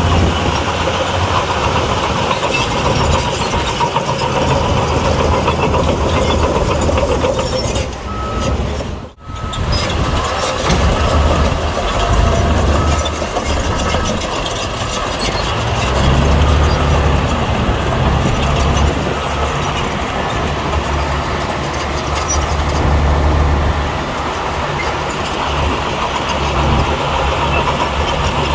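Bulldozer's diesel engine running under load, swelling and easing, with rattling from its tracks and blade. The sound drops out briefly about nine seconds in, then resumes.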